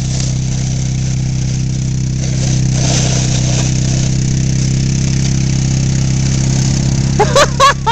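ATV engine running at a steady speed, holding an even drone that picks up slightly about a third of the way in. A person's voice calls out briefly near the end.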